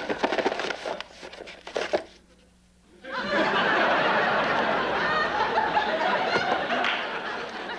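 Studio audience laughing, starting about three seconds in after a few short clicks and a brief hush.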